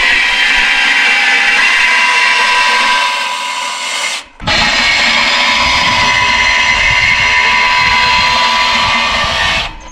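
Handheld electric power tool running steadily on steel with a high whine. It stops briefly about four seconds in, starts again, and stops just before the end.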